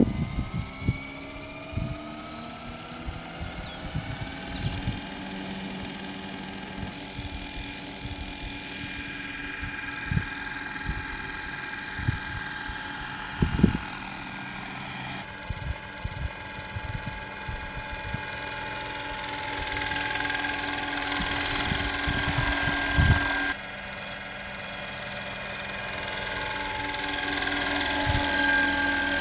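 Scale RC helicopter (a Roban AH-1 Cobra) spooling up, its motor and rotor whine rising in pitch over the first few seconds. It then runs as a steady whine in flight and grows louder as it passes close near the end. Irregular low thumps run underneath.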